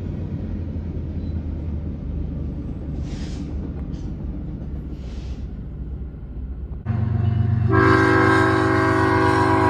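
Diesel freight locomotive rumbling steadily, with three short faint hisses in the middle. About seven seconds in its multi-chime air horn sounds, a low note joined a moment later by higher chime notes, held loud.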